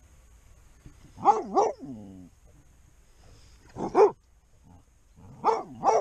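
A beagle barking: two barks about a second in, the second trailing off in a falling tone, one bark about four seconds in, and two more near the end.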